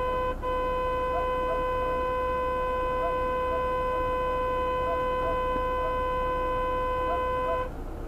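Car horn held down in one long, steady honk, broken off for an instant about half a second in and released near the end.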